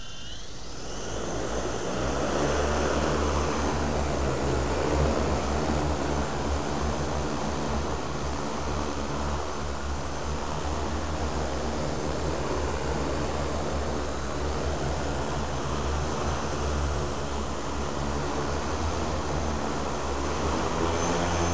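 Eight large T-Motor U8II brushless motors spinning 28-inch carbon-fibre propellers on a heavy octocopter during its first free flight. The motors spin up, rising in pitch at the start, and then hold a steady, deep propeller drone with a rushing wash.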